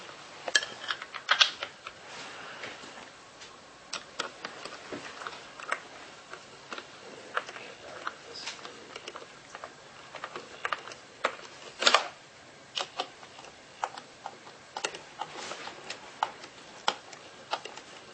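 Scattered light clicks and taps, irregular, one to a few a second, with louder clicks about a second and a half in and again near twelve seconds.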